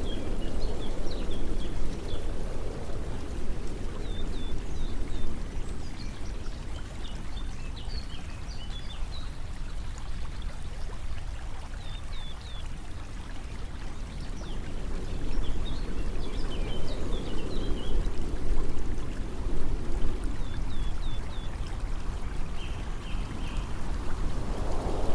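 Running water, swelling louder near the start and again from about 15 s, with scattered short, high bird chirps over it.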